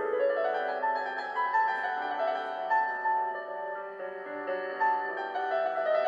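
Background piano music: a slow melody of held notes.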